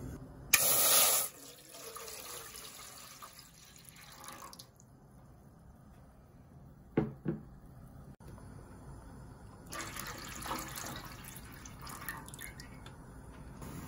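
Water poured from a pitcher into a metal pot of broth, splashing and trickling for a few seconds near the end. Earlier there is a brief loud rush of noise about half a second in, and two sharp knocks about seven seconds in.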